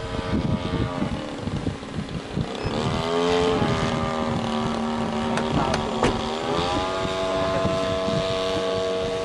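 Motor of a radio-controlled S.E.5a scale model biplane flying overhead, a steady buzzing note whose pitch dips and rises about three seconds in, then climbs to a higher steady note after about six seconds. Wind buffets the microphone underneath.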